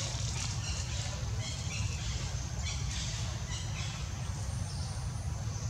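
Outdoor ambience: a steady low rumble with faint, repeated high chirps, and a brief thin high whistle near the end.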